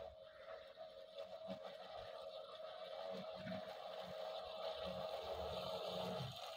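Electric motors of an RC bait boat whining steadily at speed, growing louder as the boat approaches, then cutting out suddenly about six seconds in as the autopilot brings it back to its home point.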